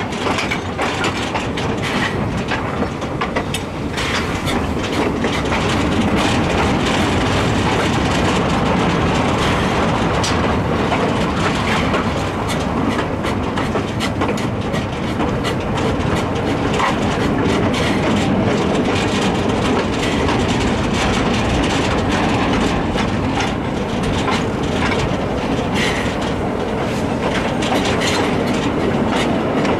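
K 92 steam locomotive running with the train, heard from right behind it: the working locomotive and the wheels clattering over the rails, a steady din that grows louder a few seconds in.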